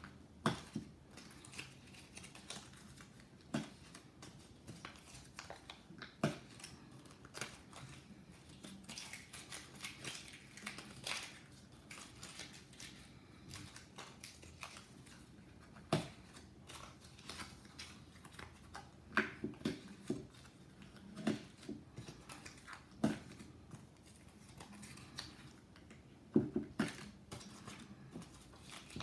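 Small squares of paper being handled and crumpled by hand while stacked onto a paper-scrap mini tree: irregular rustling and crinkling with occasional sharp clicks and taps, in a few busier clusters.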